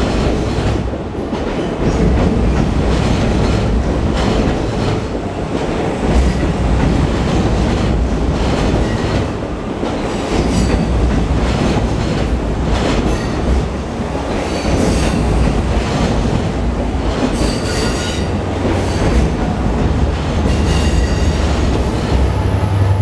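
Long Island Rail Road passenger cars rolling past close by at platform level: a steady rumble of steel wheels on rail, with clickety-clack over the rail joints and faint high wheel squeal in the second half.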